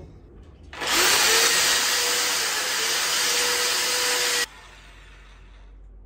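Electric drill with a 6 mm bit boring into the ceiling, widening a hole so that an 8 mm wall plug will fit. The motor spins up about a second in, runs steadily for about three and a half seconds and stops suddenly.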